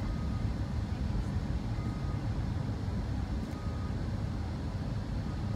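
Steady road and engine rumble heard inside a car's cabin while driving at about 35 mph.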